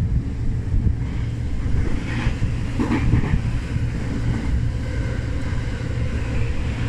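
Tokyo Metro 05 series train heard from inside the car while running: a steady low rumble of the wheels on the rails and the running gear.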